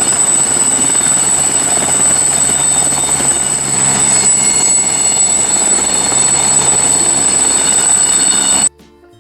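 A toy helicopter's helicopter sound effect: a loud, steady rotor-like whirr with a constant high whine, cutting off suddenly near the end.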